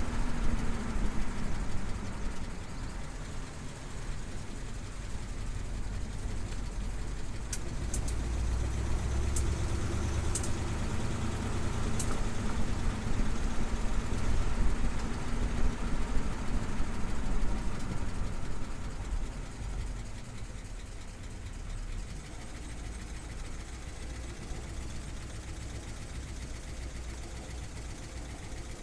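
A 1956 Oldsmobile Super 88's 324 Rocket V8 running as the car is driven slowly, with engine and road noise. The sound grows louder through the middle and eases off about two-thirds of the way through. A few sharp clicks come about a third of the way in, while the car is driven under throttle at the low speeds where the owner hears an intermittent tapping.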